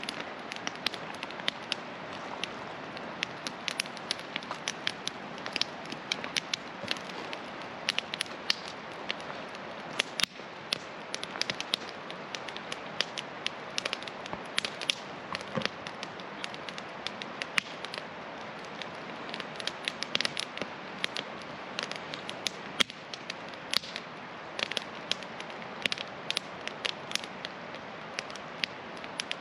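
Wood campfire crackling, with frequent irregular sharp pops, over a steady rushing hiss of a mountain river.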